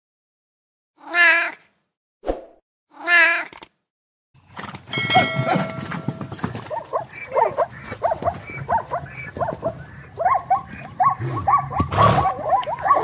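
A cat meowing twice, with a short knock between the meows. About four seconds in, a different animal recording takes over: a run of short calls, roughly two a second, over a noisy background.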